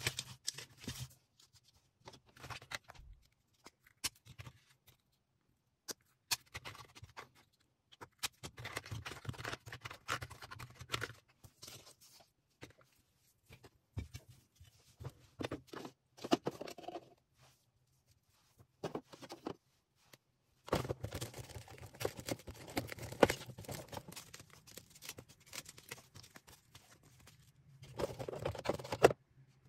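Packaging being handled while an order is packed: plastic and paper rustling and crinkling on and off, with short silent gaps and a few sharp clicks. The busiest, steadiest stretch of crinkling starts about two-thirds of the way through.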